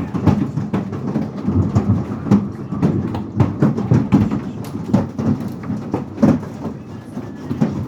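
Large hailstones pelting down in heavy rain: a dense, irregular clatter of hard impacts over a steady rush.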